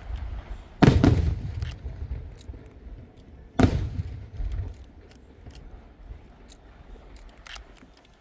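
Aerial fireworks shells bursting high overhead: two loud booms, about a second and about three and a half seconds in, each fading off in a rumble, with small scattered crackling pops in between.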